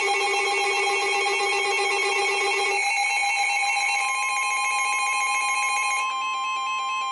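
Several electronic emergency alert tones sounding at once, announcing a severe thunderstorm warning. There are pulsing, warbling beeps at several pitches: the lowest stops about three seconds in, and a steady single tone starts about a second later and carries on.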